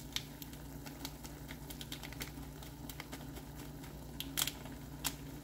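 Foil seasoning sachet being shaken and tapped over a saucepan of simmering noodles, making scattered light crinkles and ticks, with a couple of louder taps near the end.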